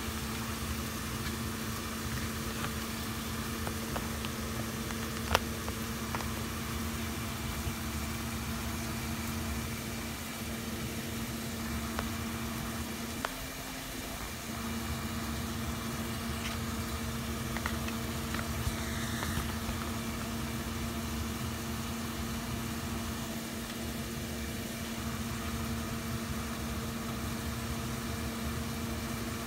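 Steady low mechanical hum with a clear tone, typical of a small motor running, with one sharp click about five seconds in and a few lighter clicks.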